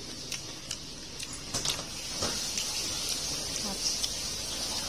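Crisp-fried small fish crackling with a few sharp clicks as fingers pick through them on a paper towel, over a steady hiss of oil frying.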